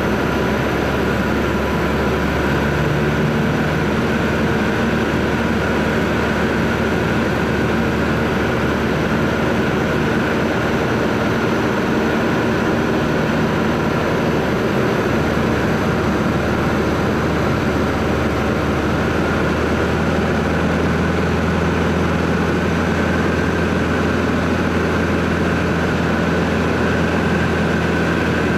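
Robin 2120 light aircraft's piston engine and propeller droning steadily in cruise, heard inside the cockpit.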